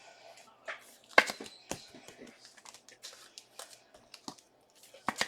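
Foil football-card pack wrappers crinkling and tearing open, with cards being handled. The loudest rip comes a little over a second in.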